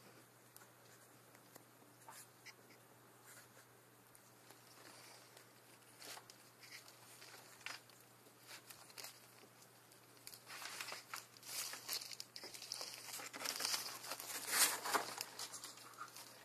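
Green iguana eating leafy salad greens: scattered soft clicks of biting and chewing, then a busier stretch of crunching and leaf tearing from about ten seconds in, loudest shortly before the end.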